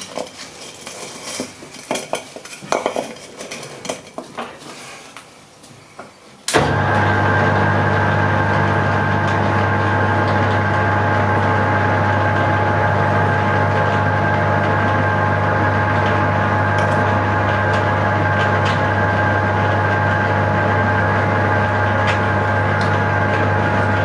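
Small metal parts and tools clinking while being handled. About six seconds in, a Hare and Forbes AL335 metal lathe is switched on and its motor and gear drive run steadily, with a low hum and a steady whine.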